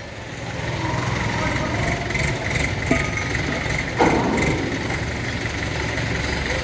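Engine of a mobile crane running steadily at idle while it holds a load, with a single short knock about four seconds in.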